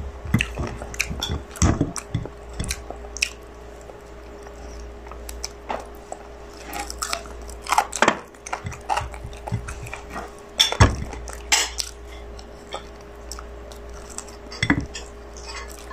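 Close-up eating sounds: chewing and biting roast chicken off the bone, with irregular clicks and knocks of fingers and chicken against a plate. A faint steady hum runs underneath.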